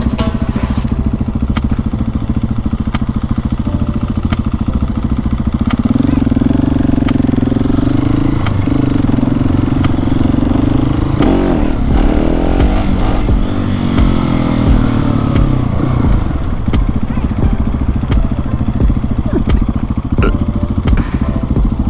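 The single-cylinder engine of a Husqvarna 701 motorcycle running as the bike is ridden, its note shifting up and down around the middle.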